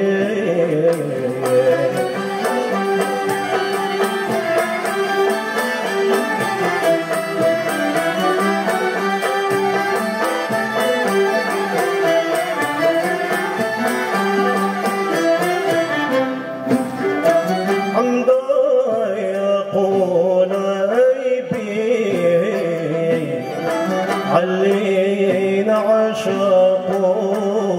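An ensemble of ouds, mandolins and violins playing an Arabic song, the plucked strings picking out quick repeated notes; from a bit past halfway a man's voice sings over them.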